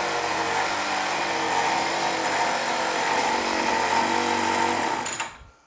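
Champion CG430B brush cutter's small two-stroke engine running steadily on a test run after a full service (new clutch, serviced carburettor, new spark plug), then shut off about five seconds in, the sound dying away within half a second.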